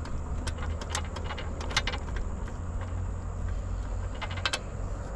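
Ballpoint pen writing on a paper label stuck to a plastic cabinet door: scattered light scratches and ticks at irregular moments, over a steady low rumble.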